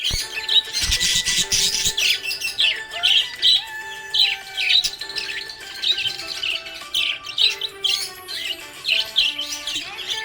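Budgerigar chirping busily, a steady run of short, high chirps several times a second, over background music of held notes.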